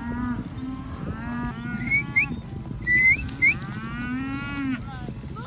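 Cattle mooing and bawling repeatedly. Several short, sharp rising whistles cut in about two and three seconds in, and these are the loudest sounds.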